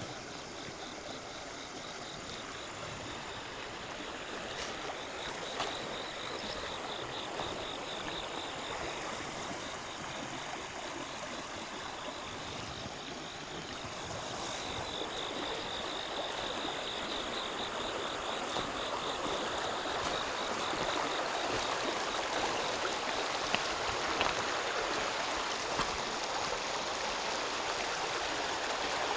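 Flowing water of a small river, a steady rushing that grows louder in the second half. A high, rapidly pulsing trill runs through the first half.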